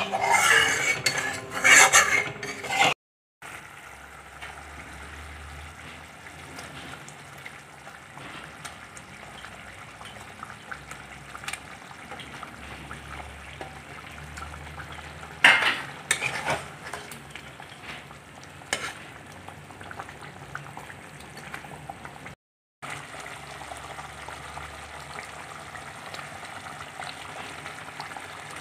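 A spatula stirring and scraping curry gravy in a wok, loud clattering for the first three seconds. Then the gravy simmers with a steady low bubbling hiss, broken by a few brief louder clatters about halfway through.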